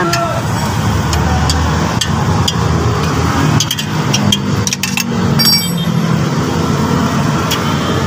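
Sharp metal clinks and taps of hand tools and a socket on bolts under a car while the inhibitor switch is unbolted, bunched together about four to five seconds in. A steady low rumble runs underneath.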